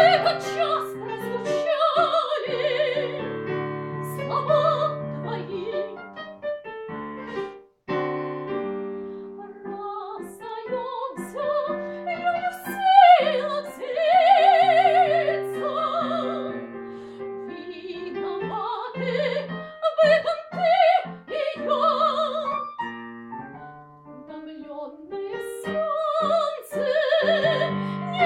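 A woman singing a Russian tango in a trained, operatic voice with vibrato, accompanied by piano chords, with a short break in the music about seven and a half seconds in.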